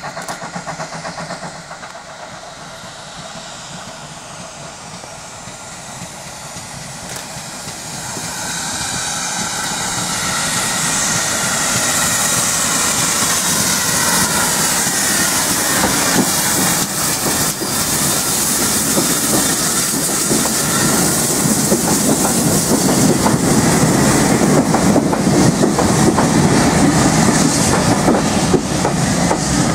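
GWR 5700 Class 0-6-0 pannier tank steam locomotive and its vintage coaches running into the station. The sound grows louder about a third of the way in and is loudest as the coaches pass close by, with steam hissing and wheels clicking over the rail joints.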